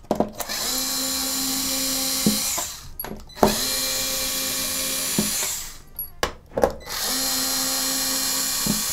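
Small electric screwdriver with a T9 Torx bit running in three steady whirring runs of about two seconds each, backing out screws, with short clicks and taps between the runs.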